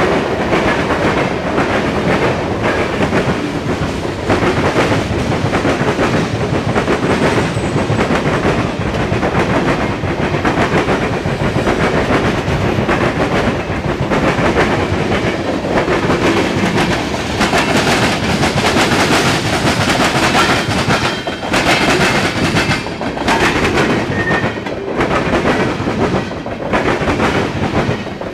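Freight train of tank cars rolling past close by: steel wheels clacking over the rail joints in a steady stream, with the continuous rumble of the cars on the track.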